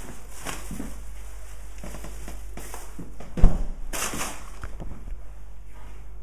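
Soft knocks and rustles as a handheld camera is moved around a room, with one loud low thump about halfway through, over a steady low hum.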